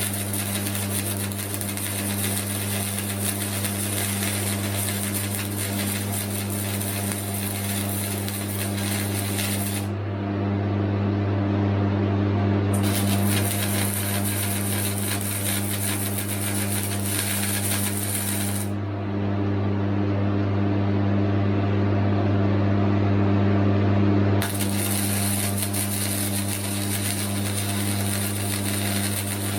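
Flux-core wire welder laying weld beads: the arc crackles and sputters continuously over a low, steady hum.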